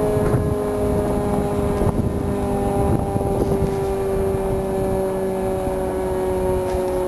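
ACA Hurricane 130 tornado siren sounding, its tone sinking slowly in pitch, over a low rumble.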